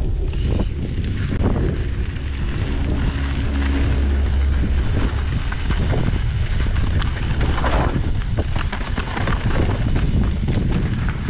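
Wind buffeting the microphone of a mountain bike's chest camera during a fast downhill ride on a gravel trail. Under a constant low rumble come many small clatters from the tyres on loose stones and from the bike rattling over the rough surface.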